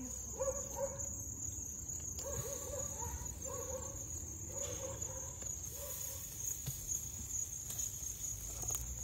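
Crickets chirping steadily in a continuous high-pitched drone, with a run of about six short low calls in the first half.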